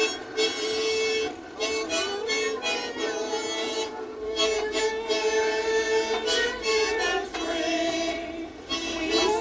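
Harmonica playing a tune in held notes and chords, with a few notes bent in pitch.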